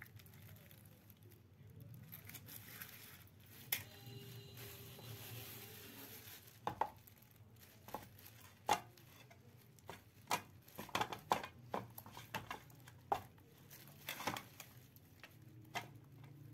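Metal spoon stirring thick gram flour batter in a bowl, with irregular clicks and knocks of the spoon against the bowl, sparse at first and frequent in the second half. A low steady hum runs underneath.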